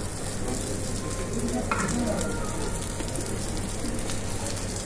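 Vegetable pieces sizzling steadily on a hot tabletop grill plate as they are laid on with metal tongs.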